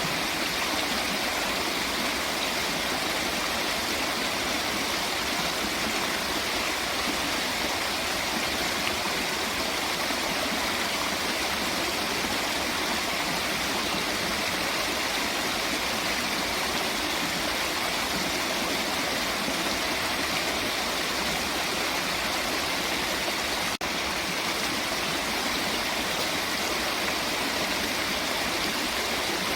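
Running water rushing steadily, a continuous even wash like a stream or waterfall, with a split-second dropout about 24 seconds in.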